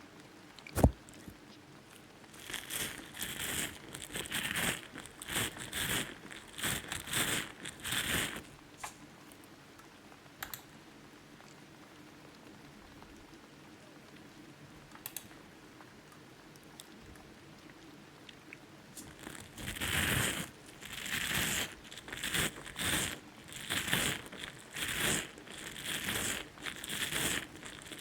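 Close-miked ASMR ear picking and gripping: short scratchy, crinkly strokes against a microphone's ear. A sharp tap comes about a second in. Clusters of strokes follow, then a quiet pause of about ten seconds, then a denser run of strokes in the second half.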